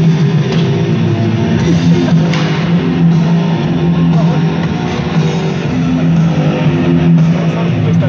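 Heavy rock music with distorted electric guitar and drums, played loud over an ice arena's sound system for the players' entrance.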